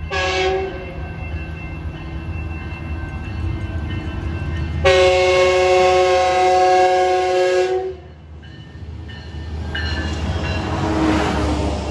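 Metrolink commuter train's locomotive horn sounding a multi-note chord: a short blast at the start, then a long blast of about three seconds from about five seconds in, over the locomotive's low engine rumble. Near the end the train's cars roll past close by with a swelling rush of wheel and rail noise.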